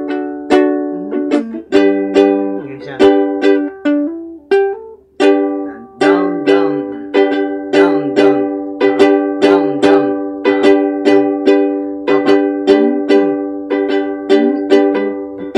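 Ukulele strummed in full chords, about two strokes a second, moving from a D chord to a G chord.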